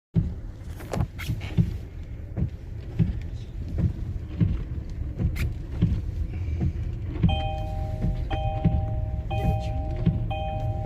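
Low rumble of a car in motion, with repeated thumps. From about seven seconds in, a two-note electronic warning chime repeats roughly once a second.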